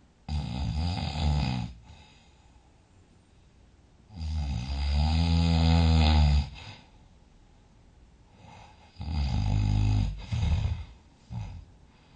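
A sleeping person snoring loudly: three long snores about four seconds apart, the last one breaking into a couple of shorter snorts near the end.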